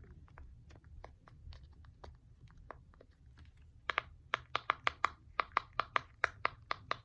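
Silicone bubbles of a mini pop-it fidget being pressed: faint soft clicks at first, then from about four seconds in a quick run of sharp pops, about three a second. The bubbles pop easily.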